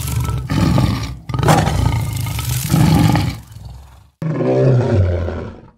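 A big animal roaring sound effect, in several roars in a row: a long one of about two seconds, then a last, deeper roar near the end that falls in pitch.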